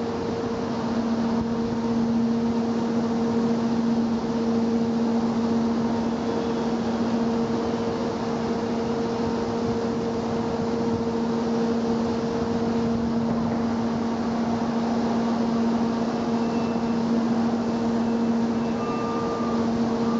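Steady mechanical hum: a constant low drone in two notes over an even rushing noise.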